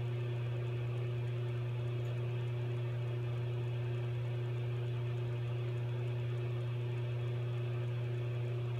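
Steady low hum with a faint hiss above it, unchanging in pitch and level.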